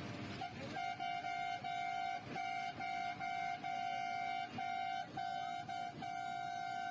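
Vehicle horn honked in a long run of quick toots: one steady high note broken by short gaps about every half second, starting about half a second in.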